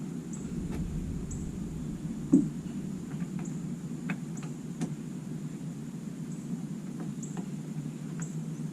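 A few sharp clicks and knocks, the loudest about two seconds in, from hands working a bulb and its plastic socket into a minivan's tail-light housing. Under them runs a steady low hum, with a faint high tick about once a second.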